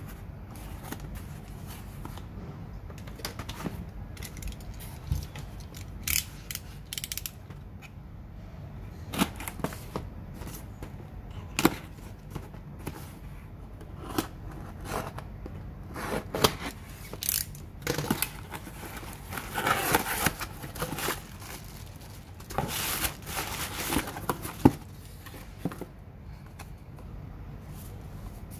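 A taped cardboard parcel being handled and cut open with a snap-off utility knife: scattered clicks, scrapes and crackling of cardboard, packing tape and plastic wrap, with two longer stretches of scraping and tearing in the second half, over a steady low hum.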